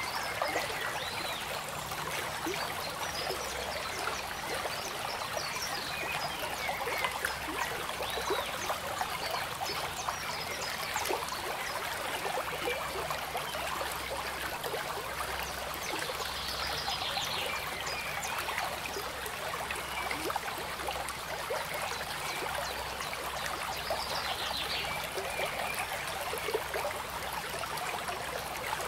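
Flowing water, a steady trickling and gurgling like a small stream, without a break.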